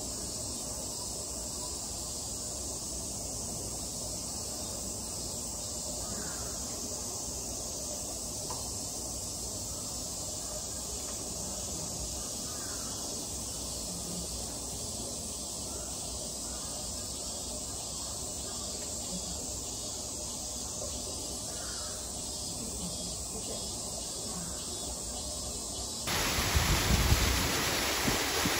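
Steady outdoor hiss with a few faint crow caws. Near the end it switches abruptly to a louder rushing noise with a low rumble.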